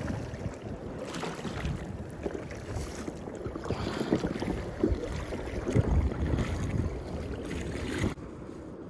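Kayak paddle strokes splashing through choppy sea water, with wind on the microphone. A few louder splashes come a second or two apart, and the wind noise eases just before the end.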